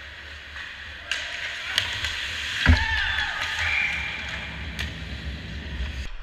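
Ice hockey play at the goal: skates scraping on the ice and sticks clicking as players crash the net, with a hard, deep thump at the net about two and a half seconds in.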